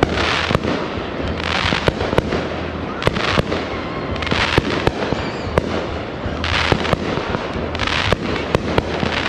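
Fireworks and firecrackers going off: scattered sharp cracks and pops at irregular intervals, over the steady hiss of heavy rain, with short surges of hiss every second or so.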